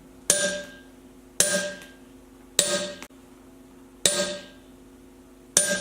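Steel ball bearing striking the face of an anvil mounted on a solid wooden stand, five separate ringing strikes a little over a second apart, each dying away before the next.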